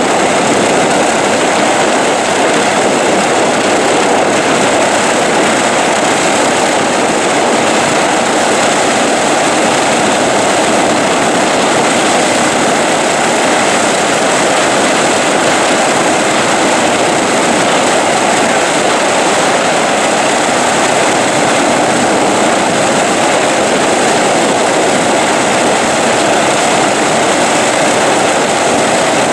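Boeing B-29 Superfortress's Wright R-3350 radial engines running at idle just after start-up, a loud, steady drone.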